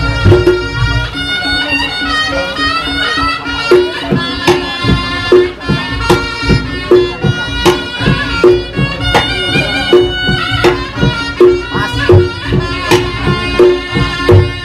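Live reyog gamelan: a slompret (East Javanese shawm) plays a reedy, wavering melody over kendang drums and steady pitched gong beats a little more than once a second.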